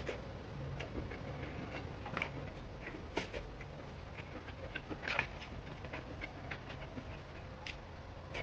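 Close-miked mukbang eating sounds: a person chewing, with irregular small mouth clicks and smacks.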